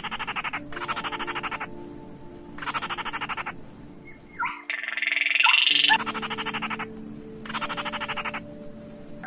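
Looped lure recording of crake calls (gỏ ghẻ and cuốc lùn): dry, rapid rattling trills in bursts of about a second, about six of them, with a louder, higher burst near the middle. A faint steady low hum runs underneath.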